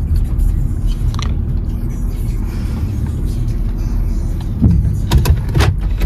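Low, steady rumble of a car running slowly as it pulls in to park, heard from inside the cabin, with a few sharp clicks about five seconds in.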